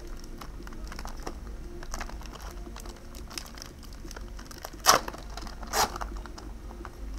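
Pokémon booster pack foil wrapper crinkling in the hands, with two short tearing rips about a second apart, the first the louder.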